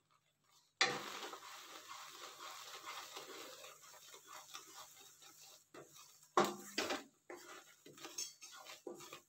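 A wooden spatula stirring and scraping besan frothing in ghee in a stainless steel kadhai. A soft hiss starts about a second in and fades over the next few seconds. A few louder scrapes against the pan come about two-thirds of the way in, with lighter ones near the end.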